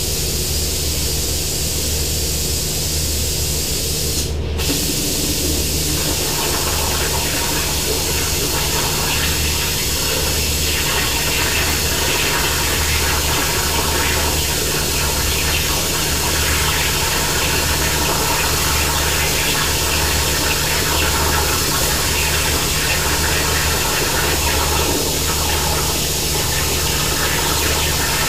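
Hypertherm Powermax65 plasma cutter on a CNC plasma table cutting sheet steel: a loud, steady hiss of the plasma arc and its air, over a low pulsing hum. The hiss breaks off for a moment about four seconds in and fills out again soon after as the cut runs on.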